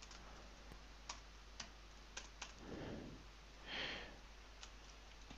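A few faint, scattered keystrokes on a computer keyboard, single clicks a second or so apart, as a line of code is edited. Two soft breathy sounds come in the middle.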